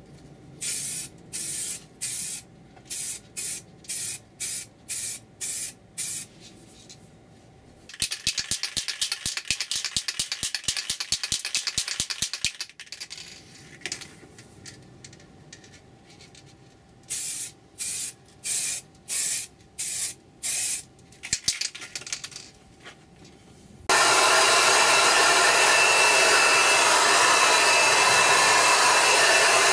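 An aerosol spray can laying down paint in short hissing passes, about a dozen of them; then the can is shaken, its mixing ball rattling fast for several seconds, before more short spray passes. Near the end a heat gun on a low setting starts up and blows steadily to warm and dry the fresh paint.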